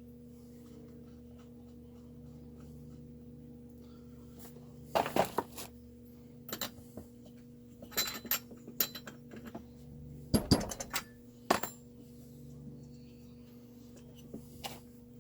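Small metal parts and hand tools clinking and knocking in short irregular bursts, louder about five, eight and ten and a half seconds in, over a steady low electrical hum.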